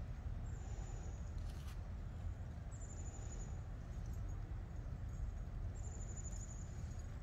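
Outdoor ambience: a steady low rumble on the microphone, with a faint, high, thin call heard three times, each slightly falling in pitch.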